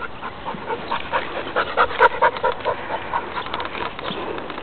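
Puppy whimpering in quick, short, high cries, several a second, loudest about two seconds in.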